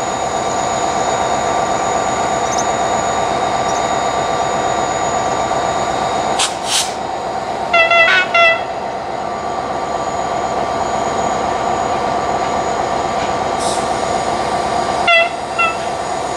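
Train horn giving short toots, a quick group of about three some eight seconds in and two more near the end, over a steady mechanical hum.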